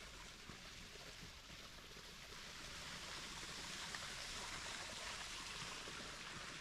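Running water from a stream, a steady rushing hiss that grows louder partway through.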